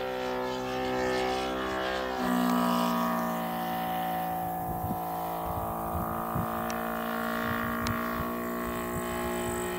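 Saito FA-450R3 three-cylinder radial four-stroke glow engine of a quarter-scale RC biplane in flight, running steadily at cruise. Its note shifts slightly in pitch about two seconds in.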